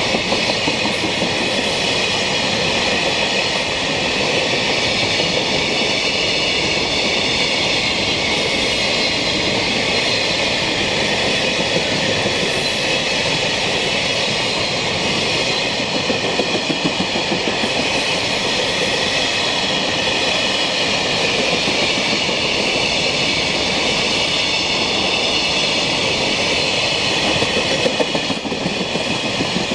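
JR Freight container train's Koki flat wagons rolling past at steady speed: a continuous rolling rumble and hiss of steel wheels on rail, with faint clicking over rail joints.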